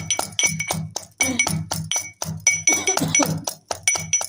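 Garlic and green chillies being pounded coarsely in a mortar and pestle (khalbatta): quick pestle strikes, about three a second, each with a short ringing clink.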